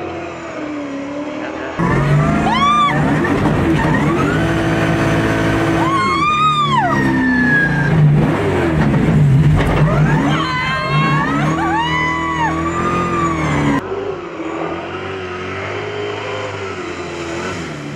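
Toyota GT86 drift car's engine revving hard during a drift, its pitch climbing and dropping again several times. It is loudest from about two seconds in until near the end.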